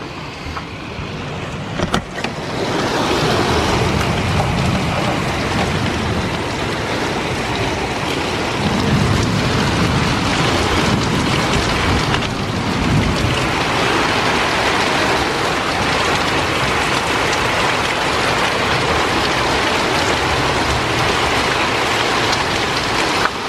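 Heavy thunderstorm rain pouring steadily, with gusting wind rumbling on the microphone. It swells over the first few seconds and then stays loud.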